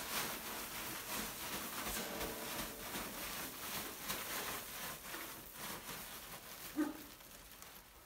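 Faint rustling and shuffling handling noise, with one brief short sound about seven seconds in.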